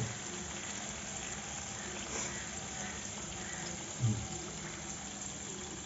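Coated chicken leg pieces deep-frying in a pan of hot oil: a steady sizzle and crackle of bubbling oil. A brief low voice sound comes about four seconds in.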